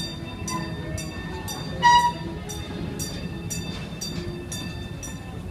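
Park steam train running, with a bell ringing steadily about twice a second over the low rumble of the cars. A brief sharp, high tone stands out about two seconds in.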